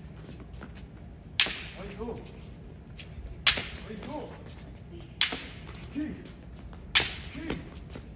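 Bamboo shinai striking a held-out shinai in kendo basic-strike practice: four sharp cracks, one about every 1.7 seconds, each followed by a short vocal call.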